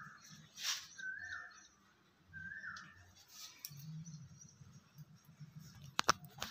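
A short chirp repeating about every second and a half, stopping after the first few seconds, over a low rumble. Brief rustles, and two sharp clicks near the end.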